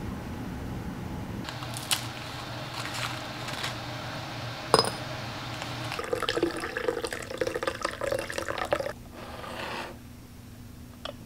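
Water poured from a kettle into a glass teapot, a steady splashing fill that stops about nine seconds in. Before the pour there are light clicks of handling and one sharp glassy clink.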